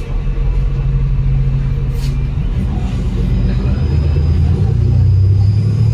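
Double-decker bus's Cummins L9 six-cylinder diesel engine and Voith automatic gearbox heard inside the cabin from the rear seats, running under way. The engine note drops about two and a half seconds in and then climbs steadily.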